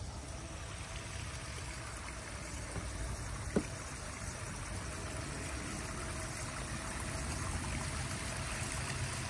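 Steady trickle of running water from a backyard fish pond, with one short tick about three and a half seconds in.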